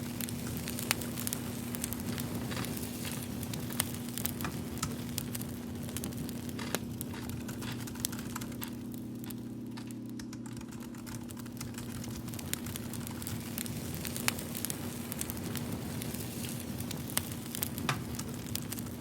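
Fire crackling: irregular sharp pops and snaps throughout, over a steady low hum.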